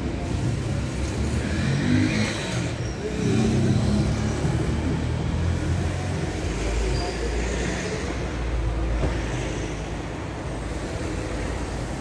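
Street traffic: car engines running and accelerating, with a heavier low engine sound in the second half.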